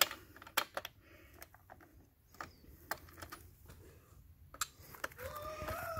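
Scattered light metallic clicks and ticks from a Stihl chainsaw's chain, bar and tensioning screw being handled with a tool while the chain tension is adjusted.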